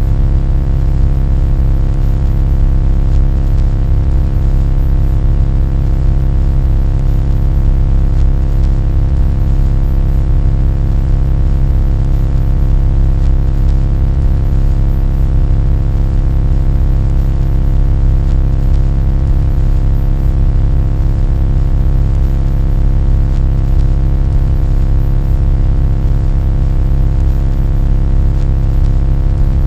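Loud, unchanging low droning hum with many steady tones layered above it.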